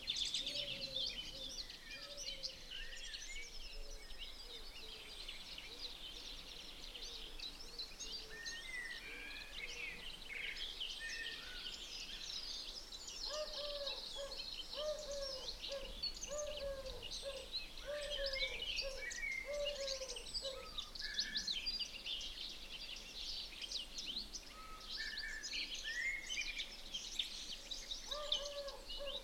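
A chorus of many birds: dense high chirps and trills throughout, with a run of short, lower, evenly repeated calls through the middle.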